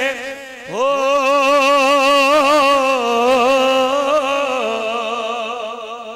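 A man's voice singing one long drawn-out note with a wavering vibrato in the melodic chanting of Punjabi Sufi verse. The note swoops up in pitch about a second in, is held, then steps down and fades near the end.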